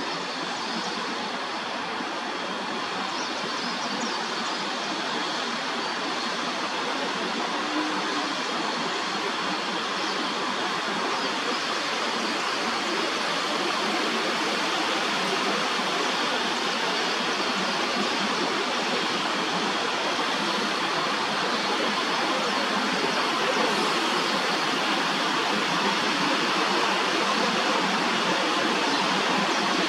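Steady rushing outdoor noise with no clear pitch, growing slightly louder over the stretch.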